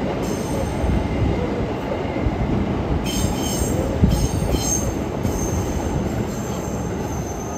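Electric train running through a station, its steady rumble joined about three seconds in by a high wheel squeal that comes and goes.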